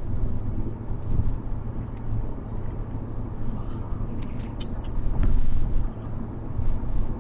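Car driving at highway speed, heard from inside the cabin: a steady low road and engine rumble, swelling a little about five seconds in, with one sharp click around the same moment.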